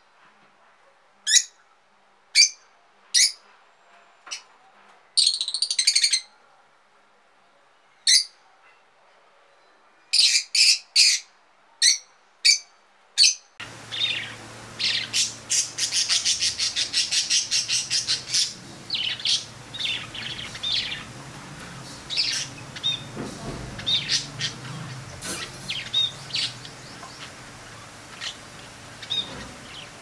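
Single sharp squawks from a lovebird, spaced a second or more apart, with a quicker cluster about ten seconds in. About halfway through, this gives way to budgerigars chattering and warbling in a rapid, busy stream of chirps over a faint steady hum.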